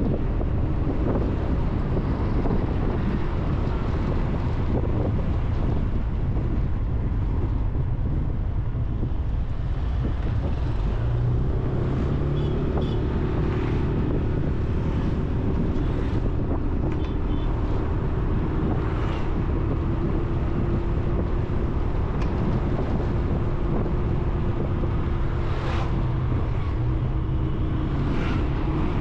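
Wind buffeting a moving action-camera microphone over road and traffic noise. A steady engine hum comes in about eleven seconds in.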